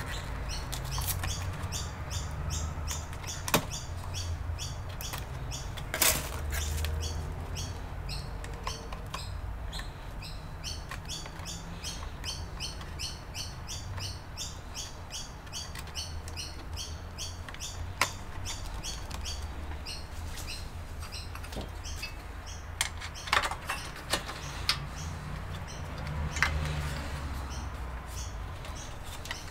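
Small bird chirping in a steady repeated rhythm, about three high chirps a second, broken by a few sharp clicks and knocks from handling hard parts. A low hum runs underneath.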